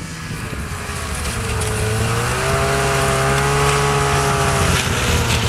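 Snowmobile engine running hard, growing louder and rising in pitch over the first two seconds, then holding a fairly steady high pitch with small wavers.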